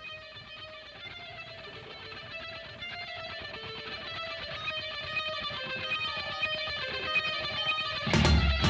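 Background music: picked guitar notes building slowly in loudness, then the full band comes in loudly near the end.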